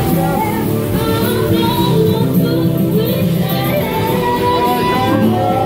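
Music: a song with a sung melody over instrumental accompaniment.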